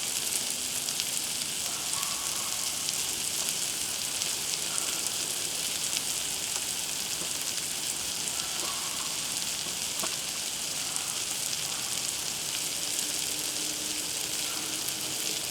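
Food sizzling on a Blackstone flat-top griddle: a steady crackling hiss.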